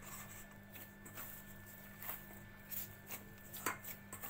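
Faint, soft sounds of a hand kneading soft dough in a steel bowl: a few scattered squishes and light taps at uneven intervals, over a steady low hum.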